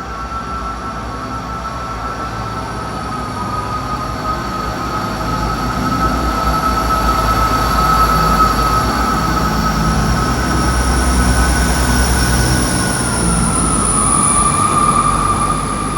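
Train moving through the station with a steady, high-pitched wheel squeal that drops slightly in pitch near the end, over a low rumble that grows louder through the middle.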